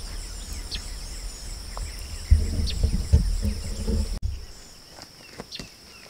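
Steady high-pitched chirring of insects in summer grass, with low rumbling and thumps from someone walking with a handheld camera during the first four seconds. About four seconds in the sound cuts abruptly to a quieter stretch where only the insects and a few light ticks remain.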